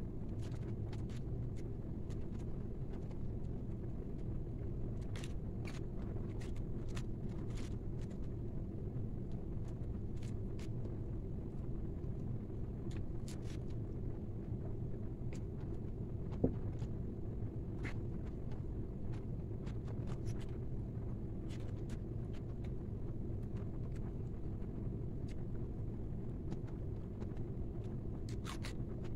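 Eating sounds: scattered short clicks of chewing and cutlery while chicken biryani is eaten, over a steady low rumble, with one sharper tap about halfway through.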